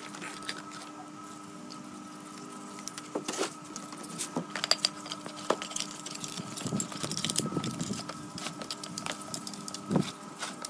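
Paintbrushes scrubbing lathe gears and a stepped cone pulley in a tray of cleaning liquid: wet swishing with scattered metal clinks as the parts knock together, over a steady background hum.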